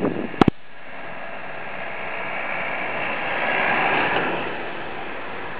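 A van passing on the road, its tyre and engine noise swelling to a peak about four seconds in and then fading. A sharp double click sounds just at the start.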